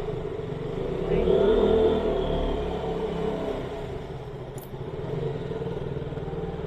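KTM Duke motorcycle's single-cylinder engine running on the move, swelling louder about a second in as it accelerates, then easing back to a steady run.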